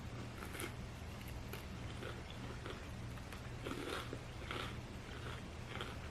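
A person chewing and biting food close to the microphone, in irregular short bursts, over a steady low hum.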